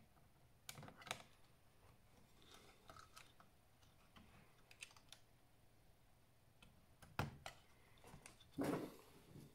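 Scattered small clicks of laptop parts being handled during disassembly, with a sharp click about seven seconds in and a short, louder scrape near the end.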